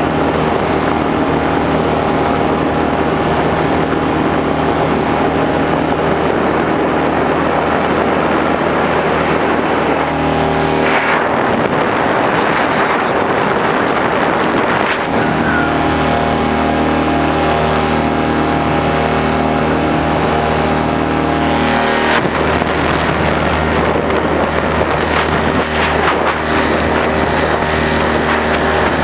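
An engine running steadily at an even pitch. For a few seconds around the middle its tone gives way to a rush of noise, then comes back.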